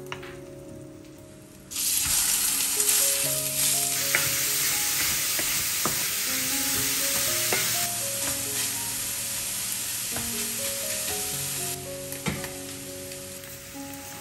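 Minced meat frying in hot olive oil in a stainless-steel pan. A loud sizzle starts suddenly about two seconds in and dies down near the end, with a few clicks of a wooden spoon stirring. Soft background music with held notes plays throughout.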